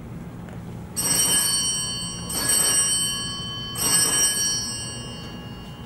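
A small bell struck three times, about a second and a half apart, each stroke ringing on in several high tones that fade slowly.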